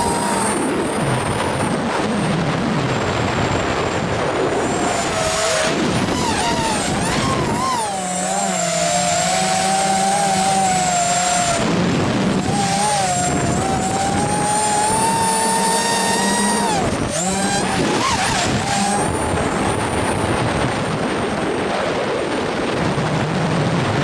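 ZMR250 quadcopter's brushless motors and propellers whining, the pitch sliding up and down as the throttle changes, over a constant rush of wind noise.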